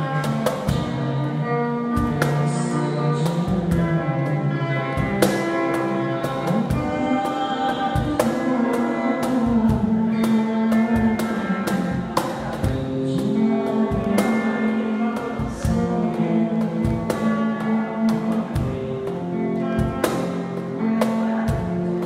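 Live acoustic band: a man singing into a microphone over guitar and a steady cajon beat.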